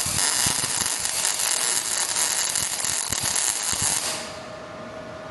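MIG welding arc crackling with a dense run of sharp pops. It stops about four seconds in, leaving a quieter steady hum.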